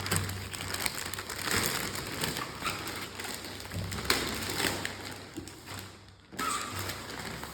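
Bread and its wrapping being handled for tasting: irregular rustling and crushing with light taps and thumps.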